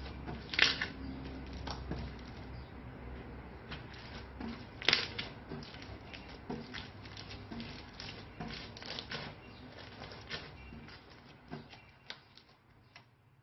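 Slime being squished and worked by hand: a run of irregular sticky clicks and small crackles, with a louder pop about half a second in and another about five seconds in, fading away near the end.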